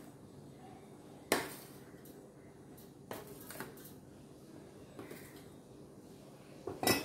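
Quiet room tone broken by a few short clinks of a utensil knocking against a mixing bowl as flour is added to cake batter, the loudest about a second in and another just before the end.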